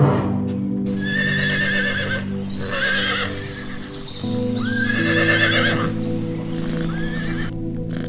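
Horses whinnying, about four quavering calls one after another, over background music with steady sustained tones.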